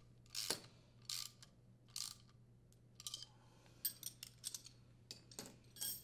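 Wrench and socket ratchet tightening the nut and bolt on a furnace blower motor's mounting bracket: scattered light metal clicks and scrapes, with a quick run of small ticks just before the middle.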